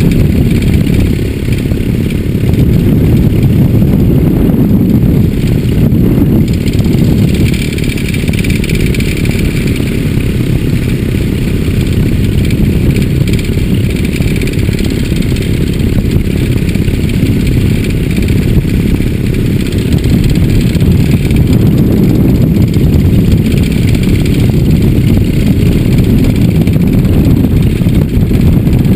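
An engine running steadily and loudly, with wind rushing over the microphone in flight.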